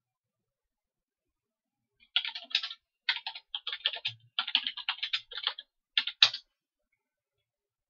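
Computer keyboard typing: quick runs of keystrokes start about two seconds in and stop about four seconds later. The last stroke is the loudest.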